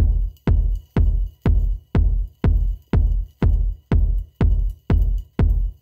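Background electronic music with a steady deep drum beat, about two beats a second.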